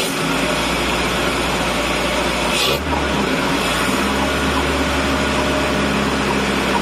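1981 UAZ 452's 2.5-litre four-cylinder petrol engine running on a freshly fitted SU carburettor, its throttle worked by hand at the carb. About a third of the way in there is a short click and the note shifts, then holds steady.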